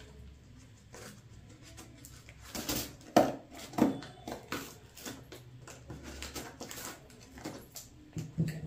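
Cardboard parcel being cut open with scissors and pulled apart: scattered snips, crinkles and light knocks, with two sharper ones about three to four seconds in.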